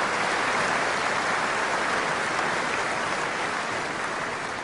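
Large crowd in an arena applauding, a steady dense clapping that starts to fade near the end.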